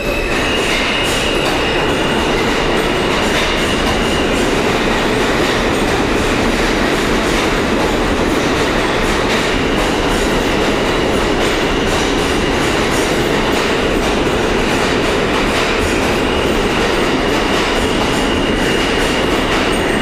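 R160A subway train pulling out of the station and running past along the platform: a loud, steady rumble of steel wheels on rail with clickety-clack over the rail joints and a faint high motor whine.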